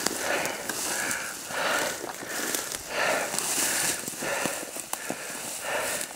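Footsteps pushing through snowy brush in a steady walking rhythm, with branches swishing against clothing and the odd twig snapping.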